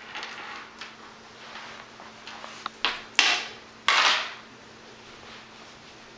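A few sharp knocks and scuffs, loudest about three and four seconds in, as a crawling baby's hands and a small toy meet a hardwood floor.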